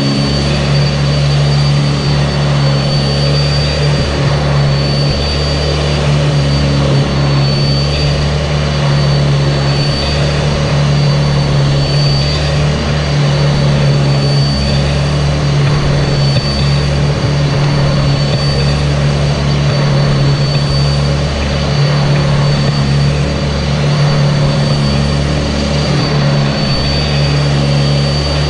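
Sanitaire SC679j upright vacuum cleaner running steadily as it vacuums, its motor giving a constant hum with a high-pitched whine over the rush of air.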